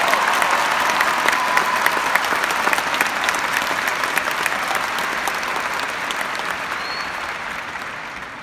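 Large crowd applauding, dense clapping that is strongest at the start and fades gradually toward the end, with a brief high whistle near the end.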